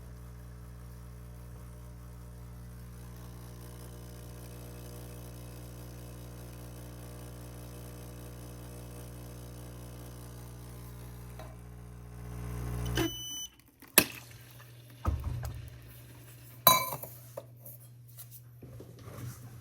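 A kitchen appliance's motor hums steadily for about thirteen seconds, grows louder briefly, then cuts off with a short beep. After that come several sharp clinks and knocks of dishes or glassware.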